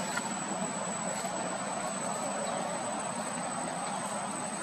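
Steady outdoor background noise, an even hiss with a thin, high, steady whine over it.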